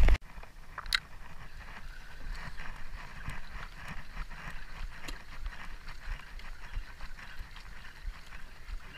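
Spinning reel being cranked with a light, steady ticking as a hooked fish is reeled in.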